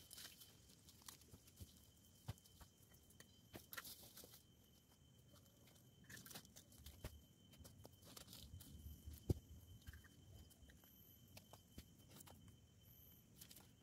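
Faint rustling and crunching of gloved hands digging through soil, dry leaves and rubble, with scattered small clicks and one sharper knock about nine seconds in.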